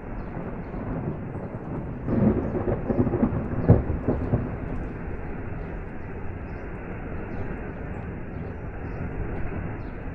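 Steady rushing noise of a waterfall and rain. About two seconds in comes a rumble of thunder lasting a couple of seconds, with a sharp crack near its peak.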